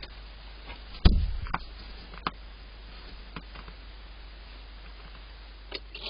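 A single dull thump against the wooden barn owl nest box about a second in, then a few faint clicks and scratches as the owls move about on the wood shavings, over steady background noise.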